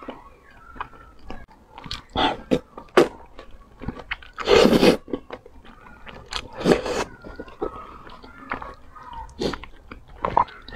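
Close-miked eating of wide starch noodles: wet chewing and smacking mouth sounds with small clicks, and two longer, louder slurps of noodles about four and a half and seven seconds in.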